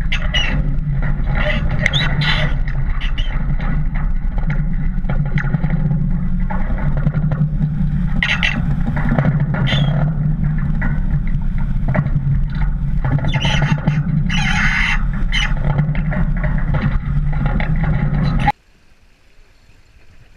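Wind buffeting the microphone and the sea rushing and splashing along the hull of a sailing yacht heeled over in rough water, with spray slapping in irregular bursts. It cuts abruptly to a much quieter, calm wash near the end.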